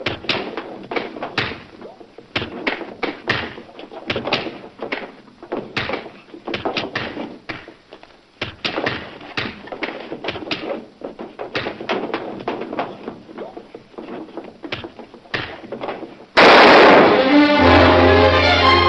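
Film fight sound effects: a long run of irregular punches, thuds and knocks of a scuffle. Near the end comes a sudden loud bang, followed by a sustained dramatic orchestral chord.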